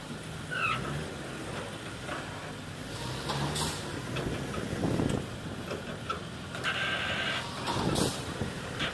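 Diesel engines of mobile cranes running steadily under lifting load, with occasional sharp metallic knocks. A short high beep sounds about three-quarters of the way through.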